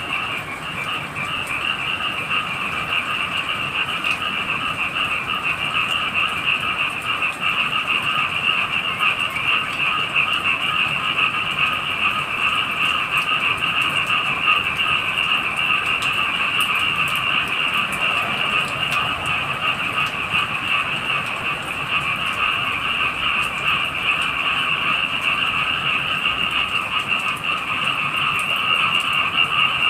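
A dense chorus of many frogs calling continuously, a higher and a lower band of rapid trilling calls blending into a steady wall of sound.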